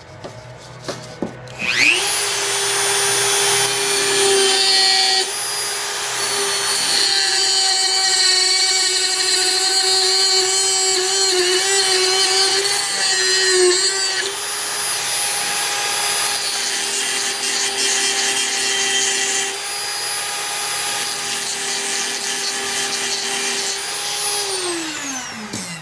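Dremel rotary tool running at high speed, trimming off the end of a screw, with a rougher grinding sound while the bit cuts. It spins up about two seconds in and winds down with a falling whine near the end.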